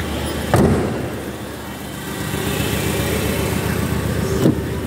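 Land Rover 2.7-litre TDV6 diesel V6 idling steadily, with a sharp knock about half a second in.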